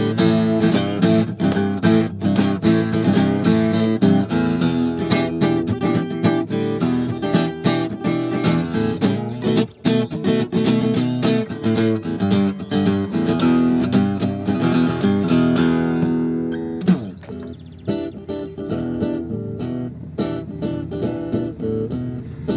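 Guitar strummed in a steady rhythm. About two-thirds of the way through it thins to quieter, sparser notes, with a brief sliding pitch.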